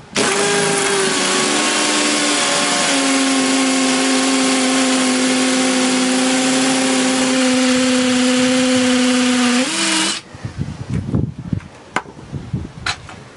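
Two Makita 18V cordless hammer driver-drills running together, drilling into a concrete block: a steady motor whine over a dense grinding hiss. Both stop together about ten seconds in, followed by a few light handling clicks.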